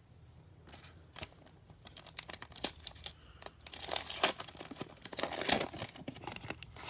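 Foil trading card pack being torn open and its wrapper crinkled: sharp crackles building to two louder spells of tearing and rustling, about four and five and a half seconds in.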